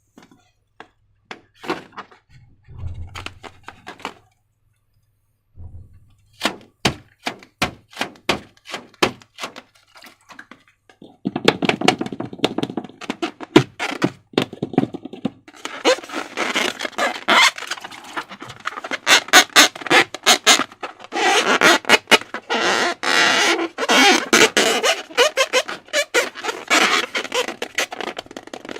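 Slime being squeezed and poked by hand: scattered sticky clicks and pops at first, then from about a third of the way in a dense, continuous run of crackling squishes.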